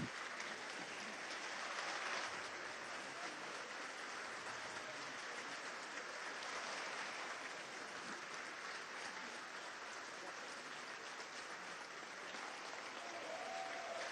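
Theatre audience applauding: a steady, even patter of many hands clapping.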